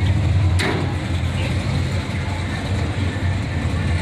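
Car on the move: a steady low rumble of engine and road noise, with one short sharp click about half a second in.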